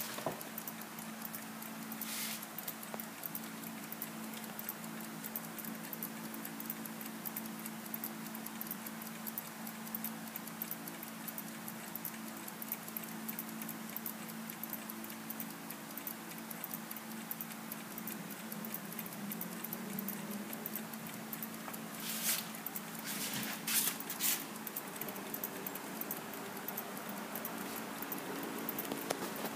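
Mechanical clocks ticking: a rapid fine ticking over a steady low hum, with a few louder knocks, one a couple of seconds in and a cluster about three-quarters of the way through.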